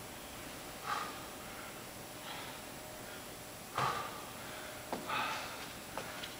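A man breathing hard during exercise: short, forceful exhales every second or two, the loudest about four seconds in.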